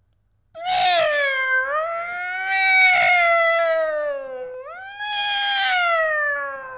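Cat-like caterwaul: a long, wavering yowl, then a second call that jumps up in pitch about four and a half seconds in and slowly falls away.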